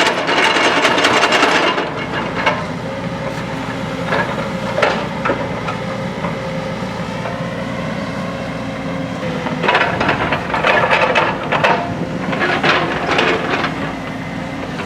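JCB backhoe loader's diesel engine running steadily while its bucket scrapes and knocks against earth and stones. Loud grinding scrapes fill the first couple of seconds, ease off to scattered knocks, then come back in bouts from about ten seconds in.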